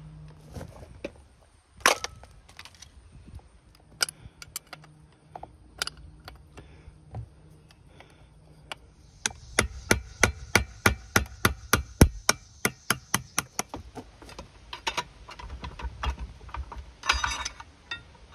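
Hand tools and metal parts clicking and knocking while an old Johnson outboard's powerhead is taken apart. Scattered single clicks give way, about nine seconds in, to a quick, even run of sharp clicks, about five or six a second, lasting four seconds or so. A short metal clatter follows near the end.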